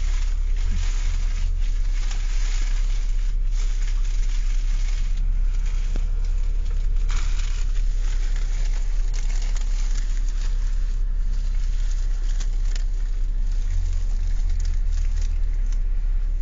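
Car engine idling: a steady low rumble with faint crackly noise over it.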